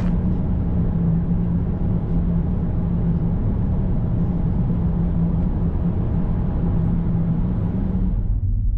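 A car driving, heard from inside the cabin: a steady engine hum and road rumble. About eight seconds in, the higher part of the noise falls away, leaving only a low rumble.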